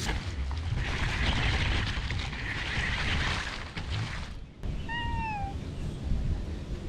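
A steady rushing noise for about the first four seconds, then a cat gives one short meow, rising slightly and falling away at the end, about five seconds in.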